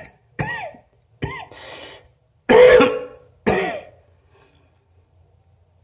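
A person coughing: a run of about five separate, voiced coughs over roughly four seconds, with the loudest near the middle.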